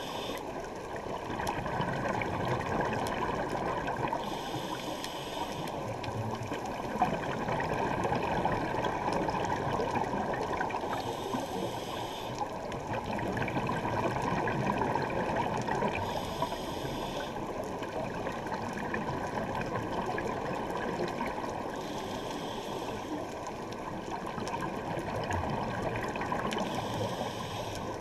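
Scuba diving heard underwater through a GoPro housing: a steady, muffled wash of water and bubbles, with a short hiss of a scuba regulator breath about every five to six seconds.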